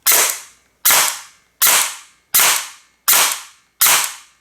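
Airsoft electric gun driven by a Novatech Xpert GP-350 brushless motor firing single shots on a 7.4 V battery, its first test after installation. Six sharp shots come about three-quarters of a second apart, each with a short ringing tail.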